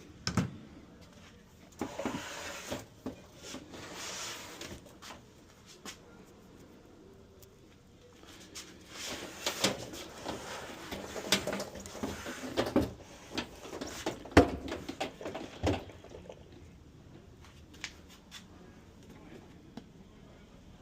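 Handling noises: scattered knocks and clicks, with stretches of rustling between them. The loudest knock is about fourteen seconds in.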